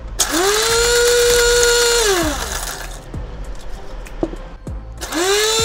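Electric coffee grinder grinding coffee beans in two pulses: the motor spins up to a steady high whine for about two seconds and winds down, then starts again near the end. A few light clicks come in the gap between the pulses.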